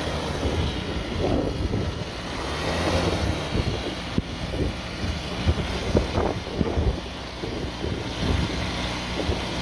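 Air-cooled Volkswagen Beetle flat-four engine running steadily in a homemade helicopter, a low, even drone with irregular knocks over it.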